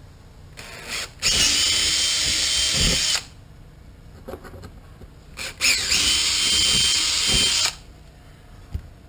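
Makita cordless drill running in two bursts of about two seconds each, a few seconds apart, with a steady whine, drilling small holes for the livewell vent's mounting screws.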